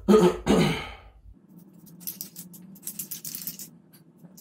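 A person clearing their throat twice in quick succession, followed by a steady low hum with a few brief scratchy handling noises.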